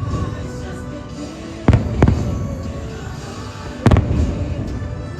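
Fireworks bursting in sharp booms: a pair a little under two seconds in and another pair near four seconds, over the show's soundtrack music.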